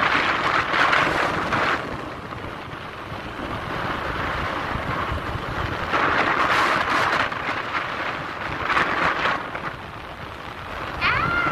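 Wind buffeting the microphone of a moving vehicle's camera, coming in gusts over steady road noise.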